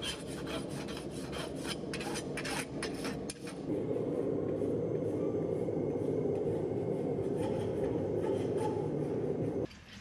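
A farrier's rasp filing a horse's hoof: quick repeated scraping strokes, then a steadier, denser scraping for about six seconds that cuts off abruptly just before the end.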